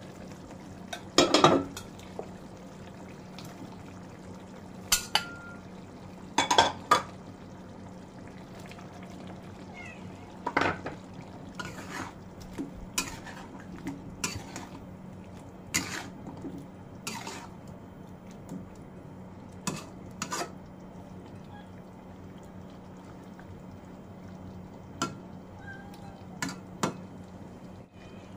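A metal spatula clanking and scraping against an aluminium pan as a stew is stirred, with the pan's metal lid clanking. Irregular sharp clicks and knocks come over a steady low hum, the loudest clanks a second or two in.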